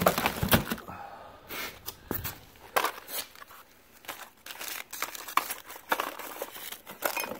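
Plastic bags and packaging crinkling, with irregular light knocks of boxes and items shifting, as a gloved hand rummages through a plastic tote.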